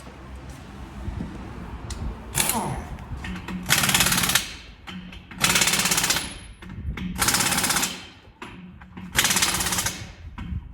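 Impact wrench hammering in about four bursts of roughly a second each, as during work on a tractor wheel's nuts.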